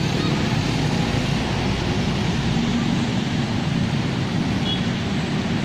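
Steady traffic noise of motorbikes and cars moving slowly through floodwater on a city road.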